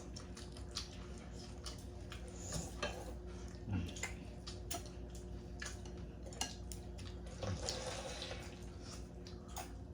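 Water splashing and sloshing with many small scattered clicks and knocks, over a steady low hum.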